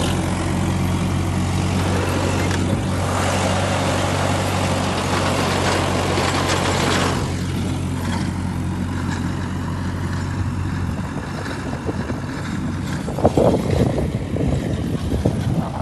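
Tractor engine running steadily, a low even hum, while the soil is worked. The hum fades about eleven seconds in, leaving irregular rustling and knocks near the end.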